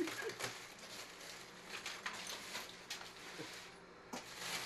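Light rustling and scattered small clicks and knocks of containers and packages being handled and moved around in a refrigerator.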